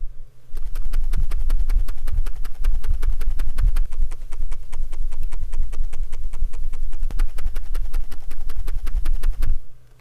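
Fast typing on an Iqunix EZ63 mechanical keyboard with Gateron Jade Pro magnetic switches: a dense, rapid run of keystroke clacks with a strong low thud under them. It starts about half a second in and stops just before the end.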